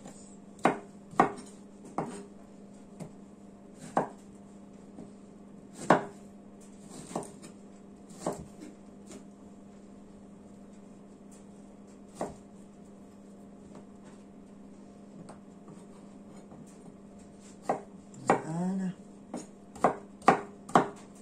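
Kitchen knife chopping pears into chunks on a cutting board: irregular sharp knocks of the blade hitting the board, a run of them in the first few seconds, only a few through the middle, then a quicker run near the end.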